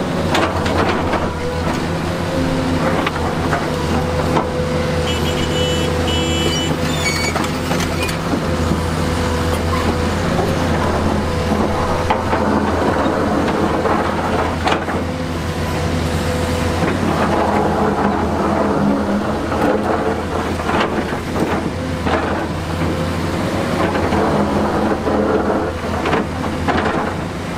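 Heavy diesel earthmoving machinery running steadily under load, with scattered knocks and scrapes of stone and a few short high squeaks about five to seven seconds in.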